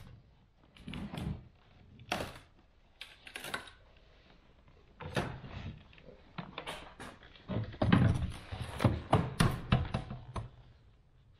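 Metal clunks and knocks as a car seat's frame is set down on a swivel seat base with welded-on steel mounting bars for a test fit. The knocks are scattered at first, then come in a quick run of sharper clunks about eight to ten seconds in.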